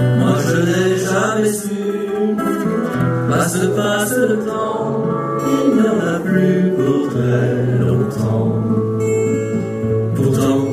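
A man singing a slow French chanson, accompanied by his own acoustic guitar.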